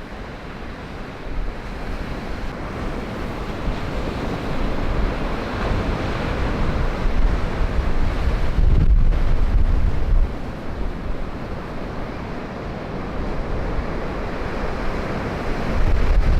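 Large storm waves surging and crashing on the Lake Erie shore in a gale, with strong wind buffeting the microphone. The surf swells to its loudest about halfway through, then eases and builds again near the end.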